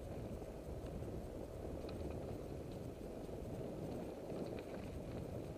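Bicycle tyres rolling over an unpaved, leaf-strewn road, a steady low rumble with a few faint scattered clicks.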